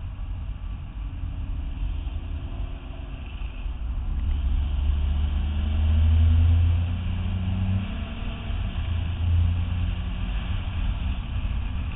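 Nissan GT-R's twin-turbo V6 accelerating on track, its pitch rising for a few seconds and then dropping at a gear change near the eight-second mark before climbing again, over a steady rush of road and wind noise.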